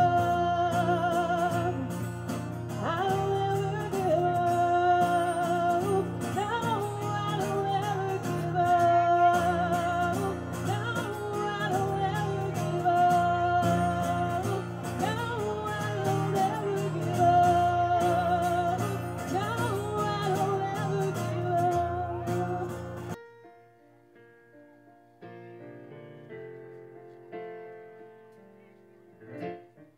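Music: a singer holding long, wavering notes over a full band. About three-quarters of the way through it breaks off suddenly, and quieter, sparse instrumental notes follow.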